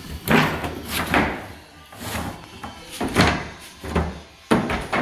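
White oak flooring planks knocking and clattering against each other as they are picked from a pile and laid down on tar paper: several sharp wooden knocks, about a second apart or less.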